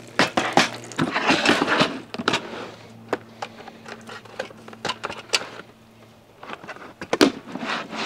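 Handling clatter as a portable butane camp stove is taken from its plastic carry case and set up: a run of sharp clicks, knocks and rustles, busiest in the first couple of seconds and again near the end. A low steady hum sits underneath until about six seconds in.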